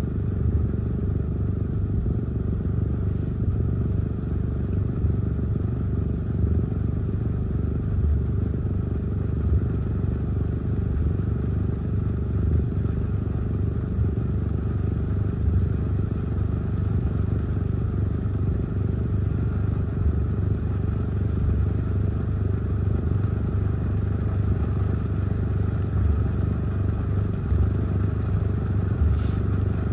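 Heavy tropical-storm rain and gusty wind beating on a car, heard from inside the cabin as a steady low rumble.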